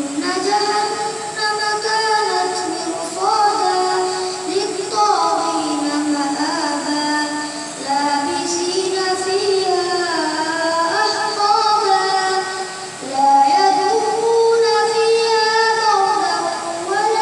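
A boy's voice chanting melodically into a microphone in long held notes that slide from pitch to pitch, with only brief pauses for breath.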